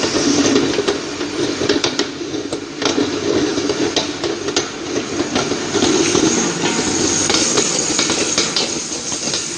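Stator-rotor date paste grinding machine running as it grinds dates into paste: a steady drone with irregular clicks and knocks throughout.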